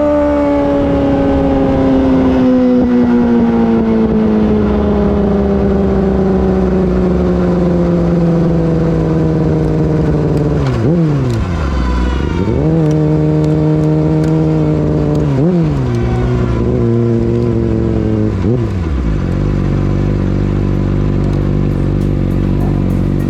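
2019 Yamaha R6's 599 cc inline-four through an Akrapovic Evolution Racing exhaust, recorded onboard. The engine note falls slowly for about ten seconds, then dips and recovers four times in quick succession, and near the end it settles into a low, steady note.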